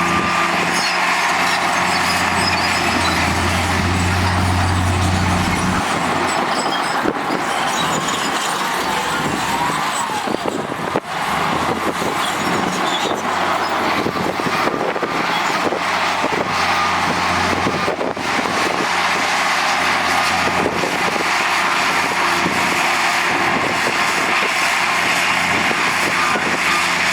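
Heavy diesel construction machinery running steadily, with a low engine drone that is strongest for the first six seconds.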